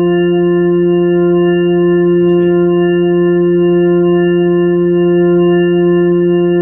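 Hammond tonewheel organ holding a single note steadily, heard through its AO-28 tube amplifier after the amplifier's terminal connections were cleaned and re-soldered; the tone is a stack of steady drawbar harmonics, unchanging throughout.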